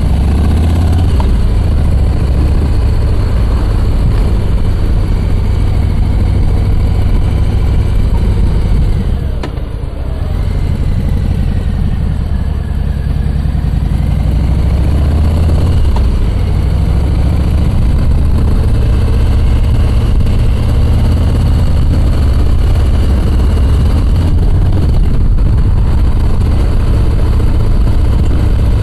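Harley-Davidson V-twin motorcycle engine running under way, a deep steady rumble. It eases off briefly about a third of the way through, then picks up again with a rise in pitch.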